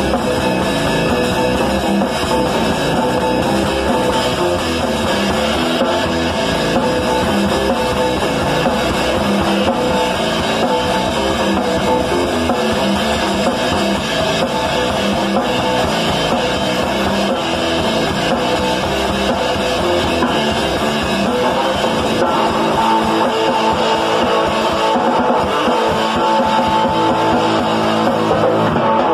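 Loud live rock jam: distorted electric guitar played with a drum kit, both at full volume. The low end thins out over the last several seconds.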